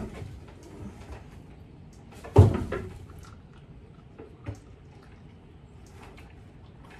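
Knocking and handling noise while a goat is held on a wooden stand and dosed by oral syringe: one loud thump about two and a half seconds in, a lighter knock a couple of seconds later, and faint rustling and small clicks between them.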